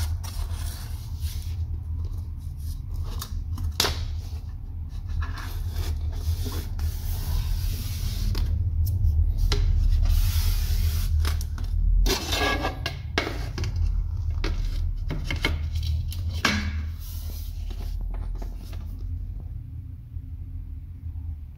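A white threshold trim strip being handled and pressed into place along a door sill over laminate flooring: scattered rubbing, scraping and light knocking, over a steady low rumble.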